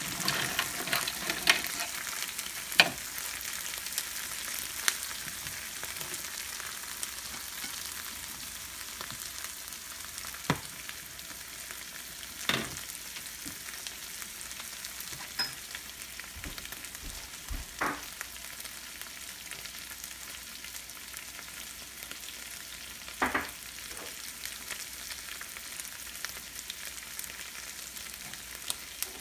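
Seafood boil broth bubbling in a large aluminum stockpot, a steady hiss, with metal tongs clicking against the pot several times in the first few seconds. A few single knocks follow, spread out.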